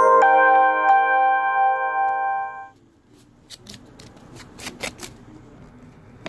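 A loud electronic two-note chime, like a doorbell, with the second note joining a moment in; both hold steady and cut off sharply after about two and a half seconds. Then a few faint clicks and rustles of paper being handled.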